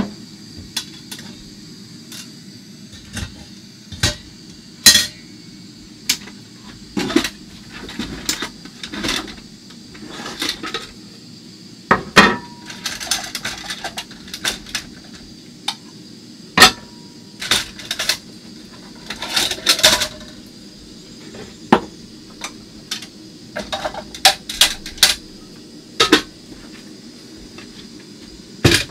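Metal camp cookware being handled and set down on a wooden counter: a string of sharp knocks and clinks, a couple of them ringing briefly.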